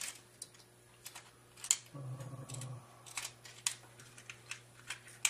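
Light, irregular clicks and taps of small tools and abrasive pieces being handled on a jeweler's bench, about nine of them, the sharpest a little before the middle.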